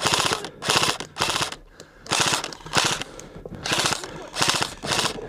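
Airsoft electric rifles firing on full auto in a string of short bursts, each well under a second, fast clicking shots with brief pauses between them.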